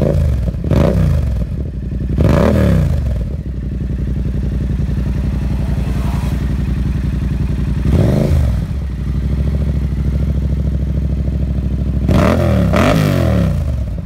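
Yamaha MT-07's parallel-twin engine running through an SC-Project S1 exhaust, idling steadily and revved in short throttle blips about five times, with a quick pair near the end.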